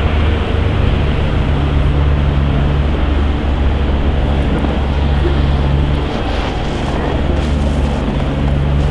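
Steady low rumble of a running vehicle, with wind noise over it, easing slightly about six seconds in.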